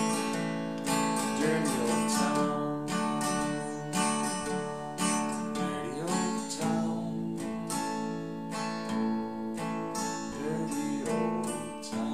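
Takamine steel-string acoustic guitar strummed steadily in a regular rhythm, played in C, F and G chord shapes with a capo at the second fret.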